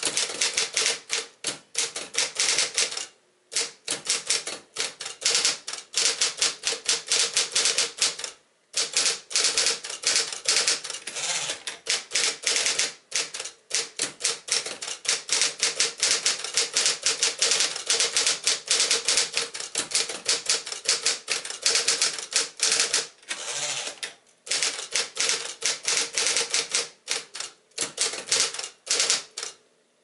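1959 Smith-Corona Electra 12 wide-carriage portable electric typewriter being typed on: a fast run of key strikes, broken by brief pauses a few times, over a steady hum.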